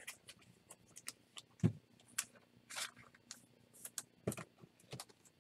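Topps Chrome baseball cards being handled and flipped through by hand: faint scattered clicks, taps and rustles, with two duller knocks about 1.7 and 4.3 seconds in.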